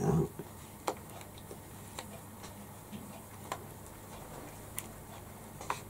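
Hand sewing with needle and thread through felt while tying off the thread with small stitches in place: a few faint, sharp clicks at irregular intervals, roughly one a second, as the needle is worked through and the thread pulled.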